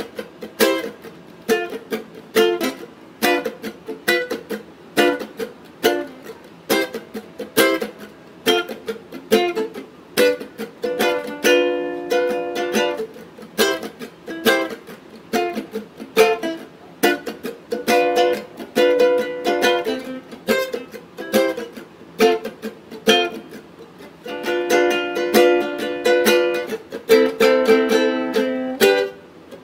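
A handmade A.Cura Custom ukulele played solo, mostly picked single notes and short melodic runs, each note ringing and dying away. Fuller strummed chords come in around eleven seconds in and again through the last few seconds.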